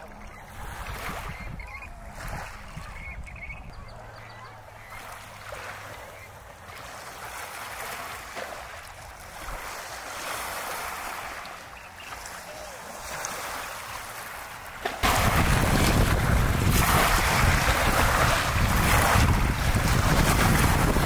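Wind and water noise around a boat on a lake. It is fairly quiet at first, then about three-quarters of the way through it jumps suddenly to a loud, steady rush of wind buffeting the microphone.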